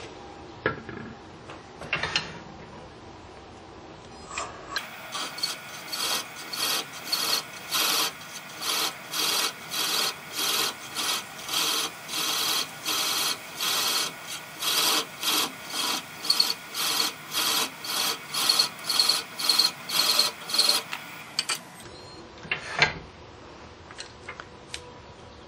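Hand thread chaser cutting threads into a wooden insert spinning on a lathe: a run of quick, even scraping strokes, about two a second, starting about five seconds in and stopping about four seconds before the end. The cut is too aggressive, taking off too much at a time, so a bit of the thread breaks out.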